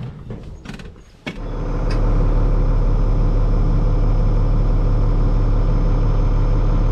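A few clicks, then a tractor engine comes in about a second in, rises quickly and settles into a steady run with a low drone.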